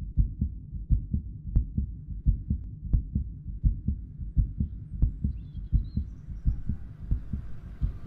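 A heartbeat: low, muffled double thumps repeating at a steady pace, about three beats every two seconds.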